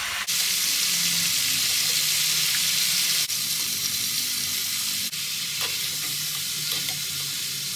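Spice-marinated chicken pieces sizzling steadily in hot oil in a frying pan on high heat, with a spatula moving the pieces about.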